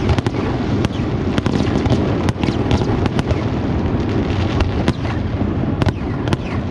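Aerial fireworks going off in quick succession: a steady low rumble of shell bursts with many sharp cracks and pops on top.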